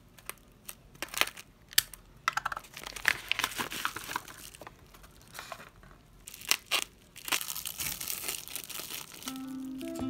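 Kraft paper wrapping crinkling and tearing as it is cut and pulled open, then plastic bubble wrap crinkling as it is unwrapped, with several sharp clicks along the way.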